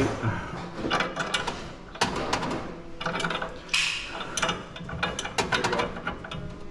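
A wrench clicking and clinking against metal in short, irregular bursts as a gas pipe fitting on a unit heater's gas line is tightened.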